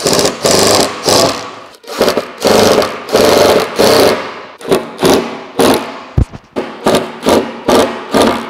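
Cordless drill-driver running in many short stop-start bursts, driving screws through a thin board into a wooden tabletop. The bursts come quicker in the second half.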